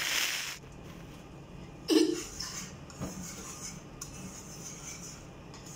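Metal wire whisk stirring flour being dry-browned in a pan, with soft scraping and one sharp clink of the whisk against the pan about two seconds in.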